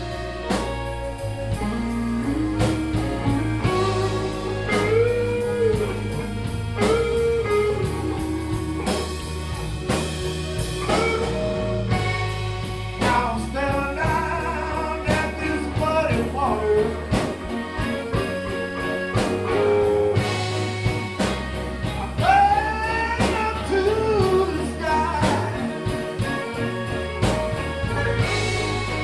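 Blues band playing, with a voice singing over drums, electric bass and plucked strings.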